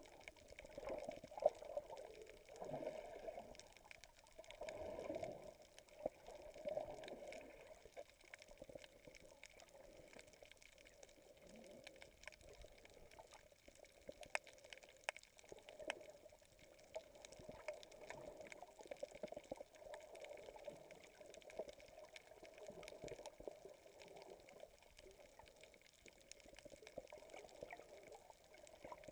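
Faint, muffled underwater sound from a submerged camera: water sloshing and gurgling in uneven swells, stronger in the first few seconds, with scattered light clicks.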